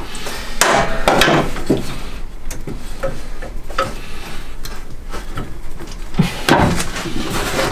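Knocks and rubbing as a metal intake pipe is pushed and twisted into its rubber hose coupler, with the loudest knocks about a second in and about six and a half seconds in.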